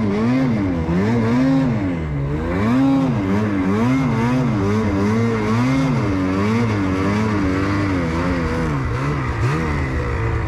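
Ski-Doo snowmobile's two-stroke engine revving up and down over and over, the pitch rising and falling about once a second or faster as the throttle is worked.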